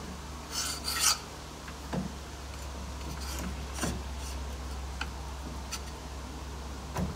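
Metal parts of a Tornado large-radius turning attachment being slid and set by hand: two short metal-on-metal scrapes just under a second in, then a few light metallic clicks and taps, over a steady low hum.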